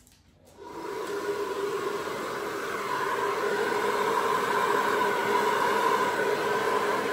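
Handheld electric air blower of the hair-dryer type, switched on with a click and spinning up over about a second into a steady whir, blowing wet acrylic paint across the panel in a Dutch pour.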